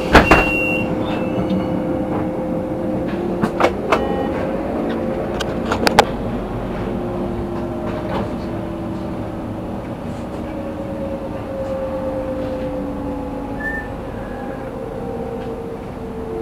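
Running noise of a moving vehicle heard from on board, with faint whining tones that slowly fall in pitch and a few sharp knocks in the first six seconds.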